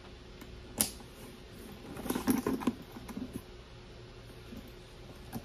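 Handling noises from a new handbag being unwrapped: a sharp click about a second in, then a short burst of crinkling and rustling around two seconds in as protective plastic is pulled off the bag's strap.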